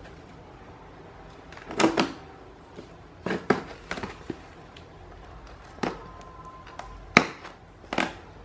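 Fingernails picking at and peeling packing tape on a small cardboard box, with the box handled on a hard counter: a scattered series of short scratches, taps and crackles, the loudest about two seconds in and near the end.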